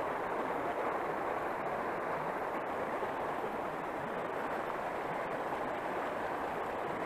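Steady rushing noise of water and wind as the boat moves along the river, with no motor tone and no speech.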